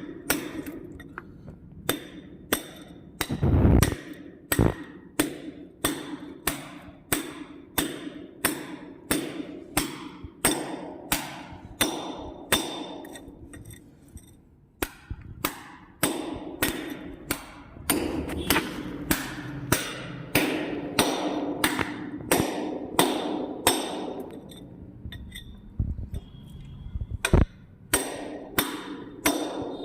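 Repeated hammer blows during plumbing work, about two a second, each with a short metallic ring, with a couple of brief pauses.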